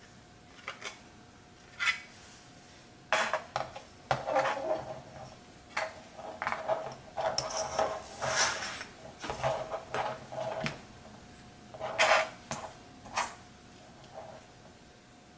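Clicks, taps and light clattering as a plastic canopy and a carbon-fibre quadcopter frame are handled and set down on a cutting mat. The clatter comes in irregular bursts, with the sharpest knocks about two, three and twelve seconds in.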